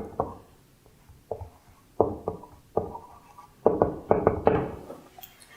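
A series of about a dozen short, sharp knocks and taps, irregularly spaced, each with a brief ringing tail.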